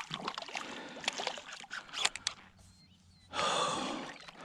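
Irregular splashing and dripping of water for about two seconds, then a short quiet, then a loud, heavy gasp of breath from an excited angler after a big bass's topwater strike.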